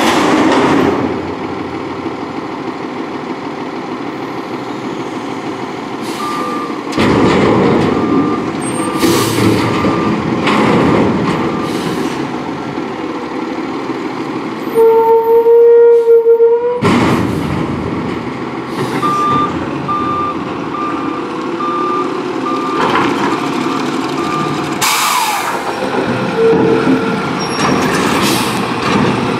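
CCC LET2 front-loader garbage truck at work: diesel engine and hydraulics running while a steel dumpster clangs at the top of the lift, then two runs of reversing beeps, starting about six and about nineteen seconds in. A loud steady tone sounds for about two seconds near the middle, and sharp hisses of air come now and then.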